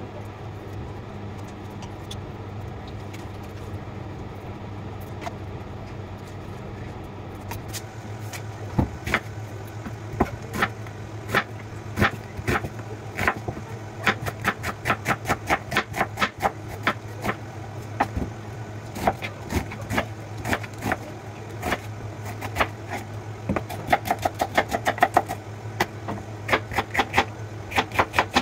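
Kitchen knife chopping on a cutting board: a quick, uneven run of sharp taps, several a second, starting about eight seconds in, over a steady low hum.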